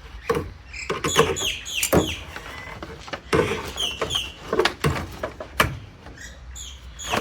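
Irregular clunks, clatters and scraping as cables and fittings are pulled and worked out of a hot water heater's sheet-metal casing, with a couple of short high squeaks.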